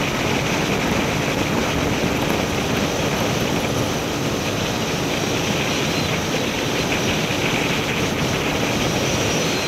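Steady rush of wind over the microphone of a Suzuki Gixxer SF 155 held flat out at about 124 km/h in fifth gear, with the single-cylinder engine droning underneath.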